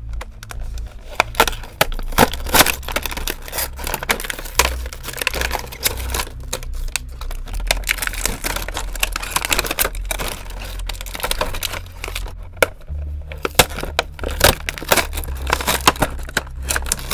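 Stiff plastic blister and cardboard backing of a 1992 Playmates action-figure package being pried, torn and crinkled open, a dense run of irregular crackles and snaps.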